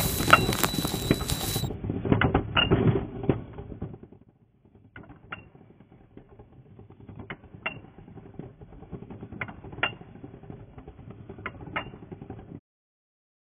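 A pencil being sharpened, a rough scraping with irregular clicks in several short spells that stops abruptly near the end. It follows a louder mechanical clatter with a high steady whine that cuts off about a second and a half in.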